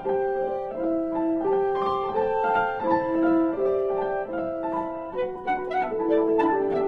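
Instrumental background music: a slow piano melody of held notes, with a quicker run of plucked notes coming in near the end.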